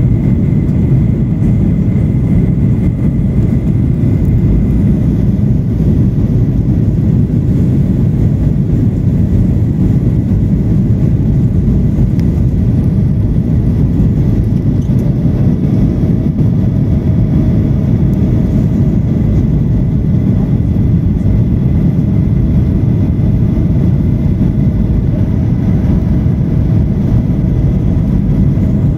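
Steady cabin noise of a Boeing 737-800 on its landing approach, heard from a window seat over the wing: a loud, even, low rumble of its CFM56-7B jet engines and the airflow past the fuselage.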